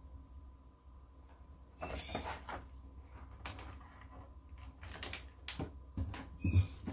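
Plastic sheet of foil iron-on vinyl crinkling and rubbing as it is pressed and smoothed by hand onto a sticky cutting mat, in irregular rustles and short crackles starting about two seconds in.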